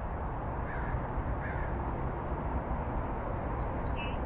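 Small birds chirping over a steady outdoor hiss: two faint chirps in the first second and a half, then a quick run of short, high chirps in the last second.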